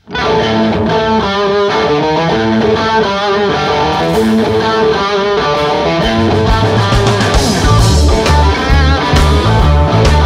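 A blues-rock band starts playing live, opening with an electric guitar lead of bent, wavering notes. Bass and drums come in heavier about six seconds in.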